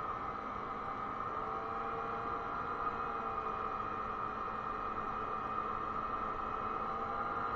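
2007 Vespa LX50's 50cc four-stroke single-cylinder engine and drive droning steadily at cruising speed, mixed with a rush of wind noise. The pitch drifts slightly up and down.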